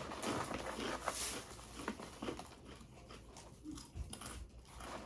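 Crunchy rice crackers being chewed close to the microphone, with irregular crackling crunches.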